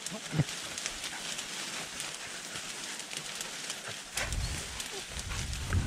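Footsteps pushing through dense, dry low brush: a continual crackle of snapping twigs and rustling leaves, with a low rumble joining about four seconds in.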